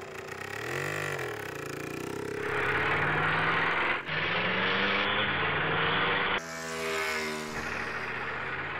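Dubbed vehicle engine sound effects: an engine revs up and back down about a second in, then runs on as a harsher, steadier engine noise. Abrupt cuts between engine clips come at about four and six and a half seconds.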